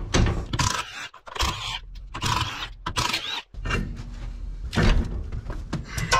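Irregular clunks, knocks and scraping as a trailer's wheel and tire is worked off its hub and handled.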